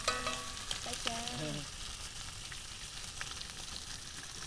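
Bacon sizzling steadily in a cast-iron skillet on a camp stove, with eggs frying in a second pan as a wooden spoon stirs them.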